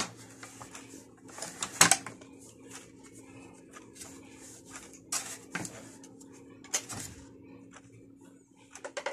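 Scattered clicks, knocks and scrapes of a screwdriver and hands working on the plastic housing of a Philips vacuum cleaner as its cover screws are taken out, over a faint steady hum.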